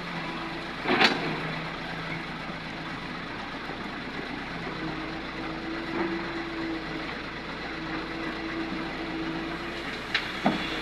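Heavy earthmoving machinery running steadily, with a sharp knock about a second in and a few more near the end.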